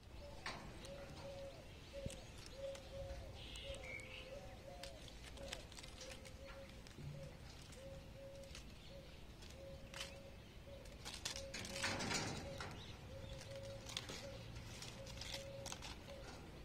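Cats clawing and climbing on a wire-mesh cage, with scattered scratches and clicks and a louder rattling rustle about twelve seconds in. Behind this, a bird calls over and over in short, even notes about twice a second.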